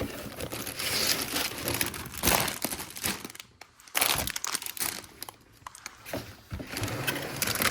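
Plastic bags of LEGO parts crinkling and rustling as they are handled and sorted, in uneven bursts with a short lull a little past the middle.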